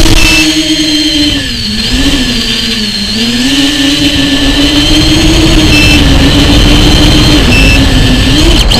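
Onboard audio of an FPV model aircraft's electric motor and propeller: a loud buzzing drone whose pitch sags about two seconds in and climbs back as the throttle changes, with a thin high whine above it and air rushing over the microphone.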